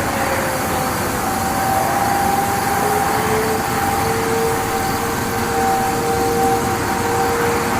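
Outdoor tornado warning sirens sounding faint steady tones over a steady rushing background noise. One tone slides down near the start, and another winds up from about two seconds in and then holds.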